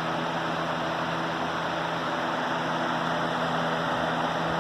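2019 Lasko box fan running on its high setting: a steady rush of air over a constant motor hum.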